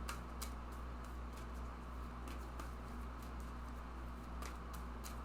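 Tarot cards being handled and drawn, giving scattered soft clicks and ticks over a steady low electrical hum.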